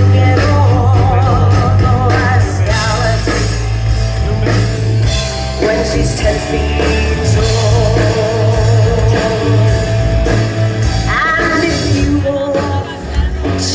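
Live rock band playing through a PA, with a singer's voice holding long, wavering notes over bass, guitar and drums.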